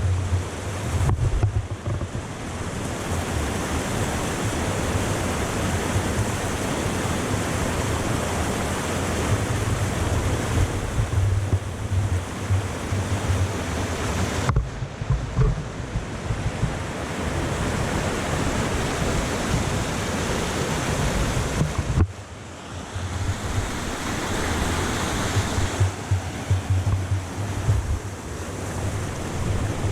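Waterfall rushing in a steady loud roar, with wind buffeting the microphone in low gusts. The sound changes abruptly three times: about a second in, near the middle and about two-thirds of the way through.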